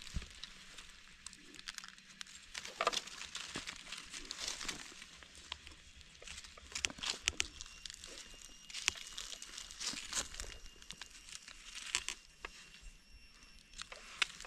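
Dry leaf litter crackling and rustling in irregular bursts as gloved hands dig through it and pull a mushroom from the forest floor.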